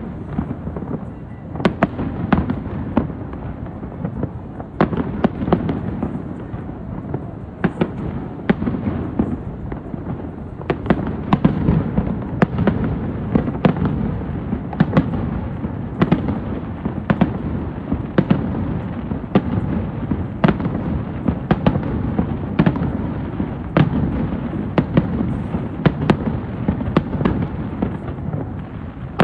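Fireworks show: a steady barrage of bursting shells, with sharp bangs every second or so over a continuous low rumble.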